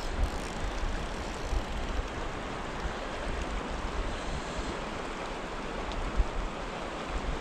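Steady rushing of a fast, choppy river current, with wind buffeting the microphone in irregular low gusts.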